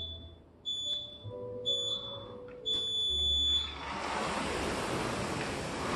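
Countdown beeps a second apart, the last one held longer as the start signal, then an air rowing machine's fan flywheel whooshing as rowing gets under way.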